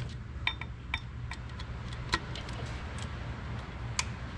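Torque wrench and socket clicking a few times, unevenly spaced, as they tighten the small bolts of a new oil filter return tube (standpipe) inside a Ford 6.0 Powerstroke diesel's oil filter housing, over a low steady hum.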